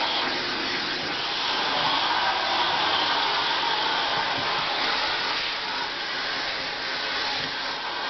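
Vacuum cleaner running steadily: a constant rushing of air drawn in through its metal wand and floor nozzle on the carpet.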